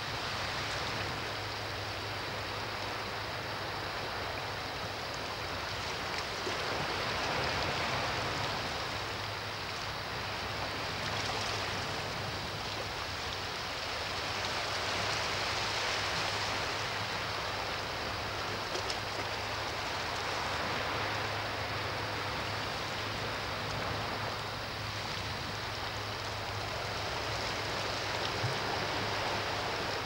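Small sea waves washing against shoreline rocks: a continuous hiss of moving water that swells and eases every several seconds.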